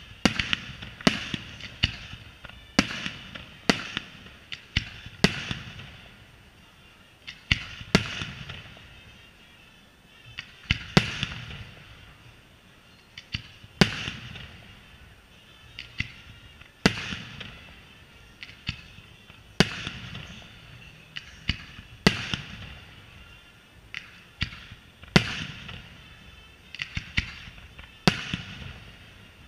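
Aerial firework shells bursting overhead in a steady series of sharp bangs, each followed by a crackling fizz as the stars burn out. The bangs come about once a second at first, then slow to roughly one every three seconds.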